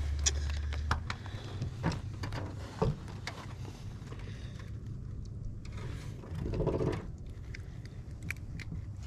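Scattered clicks and light knocks of fishing tackle as a hooked fish is reeled in and brought to the boat, with a low hum cutting off about a second in.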